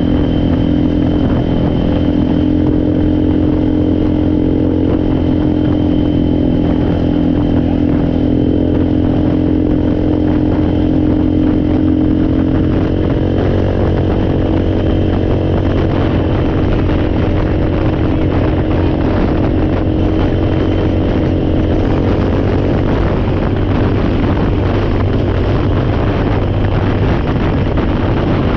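ATV engine running steadily while riding along, its note shifting about halfway through.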